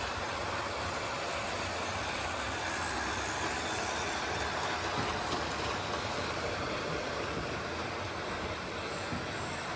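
Model electric trains running steadily on the layout's track, with an even rolling rumble of wheels on rails and motor hum.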